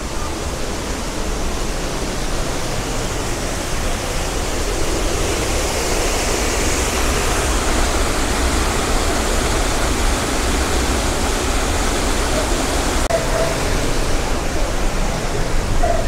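Steady rush of falling water from the Upper Düden waterfall, growing a little louder over the first few seconds.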